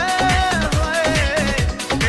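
Haryanvi pop dance song playing, with a steady electronic beat under a held, wavering melody line.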